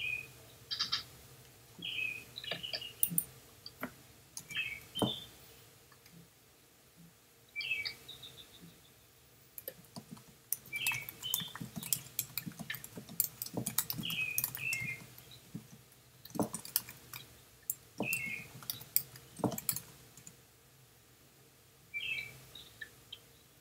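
Computer keyboard typing in irregular bursts of clicks, busiest about halfway through, with short high chirps every second or two.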